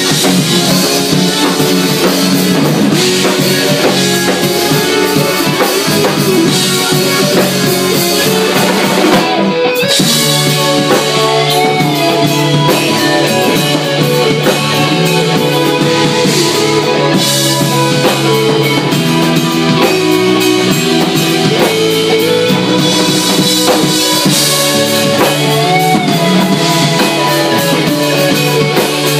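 Live rock band playing an instrumental passage: a Les Paul-style electric guitar playing bending lead lines over bass guitar and a drum kit.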